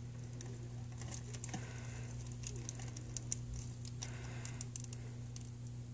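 Faint scattered clicks and light rustles of hands handling a small plastic action figure and its packaging, over a steady low hum.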